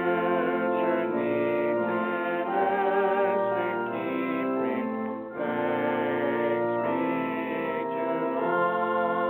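A hymn: a singing voice with vibrato, held sustained notes in phrases, over keyboard accompaniment.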